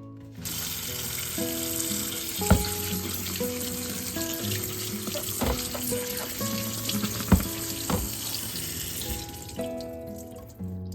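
Water running steadily from a kitchen tap into a sink, starting suddenly and tailing off near the end, with a few sharp knocks, as of items being handled in the sink.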